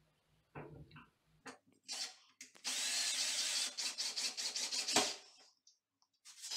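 Ryobi cordless drill driving a screw through a metal towel-bar bracket into a wall stud. It runs in a few short bursts, then a longer run of about two seconds that breaks into quick pulses before stopping, and a last short burst near the end.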